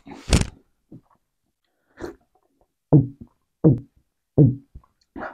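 Swallowing a drink from a glass mug: a sip near the start, then three loud, deep gulps about three-quarters of a second apart.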